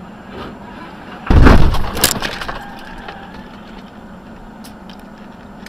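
Car crash on a highway: a loud impact about a second in with breaking glass, a second crack just after, then scattered pieces tinkling down, over a steady low hum.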